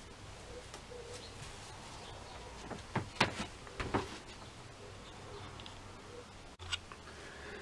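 Faint workshop background with a few soft knocks and rustles of handling on the bench, clustered about three to four seconds in and once more near the end.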